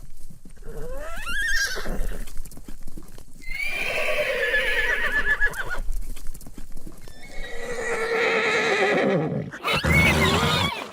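Horse neighing several times: a short rising call about a second in, then two long whinnies whose quavering pitch starts high and falls away. A loud, rougher, noisier burst from the horse comes in the last second.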